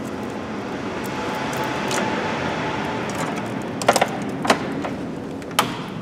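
Hands working in a car's engine bay, undoing cables and plastic clips: three sharp clicks and knocks in the second half, over a steady background hiss.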